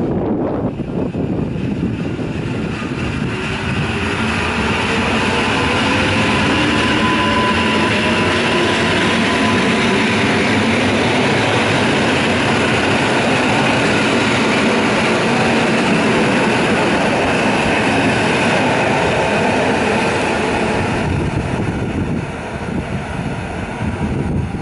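EN57AKM electric multiple unit pulling out and accelerating past along the platform. Its traction motors whine, rising in pitch over the first several seconds, over the running noise of the wheels and carriages. The noise fades about three seconds before the end.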